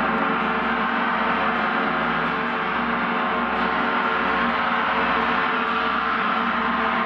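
Large gong sounding continuously, a dense shimmer of many overtones that holds steady in level without fading.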